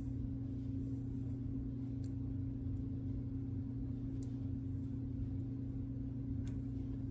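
Steady low electrical hum, with three faint small clicks about two seconds apart as tiny plastic model-train coupler parts are handled and fitted.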